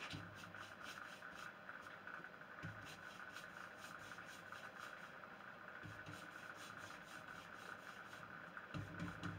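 Faint, quick, even rubbing strokes of a cloth working Briwax into a stripped pine door, over a steady faint hum, with a couple of soft knocks near the end.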